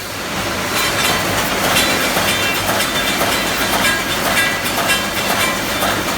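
Automatic wire mesh welding machine running in production, a dense, loud mechanical clatter with an uneven repeating beat.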